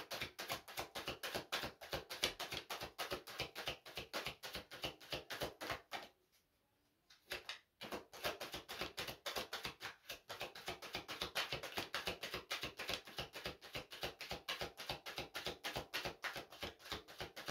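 A deck of oracle cards shuffled by hand, overhand from hand to hand, the cards flicking against each other in a fast, even run of soft clicks, several a second. The shuffling stops for about a second and a half some six seconds in, then carries on.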